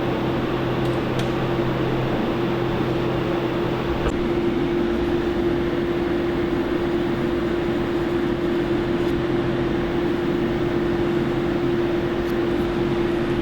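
A machine running steadily: an even hum with one constant tone.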